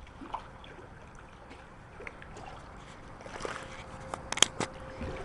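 Water sloshing and splashing in a pool as dogs swim and paddle, with a few sharp clicks about four seconds in.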